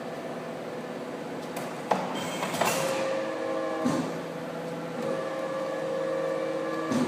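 CNC tube-bending machine running: a steady motor hum with about four sharp clunks spread through as it works a tube.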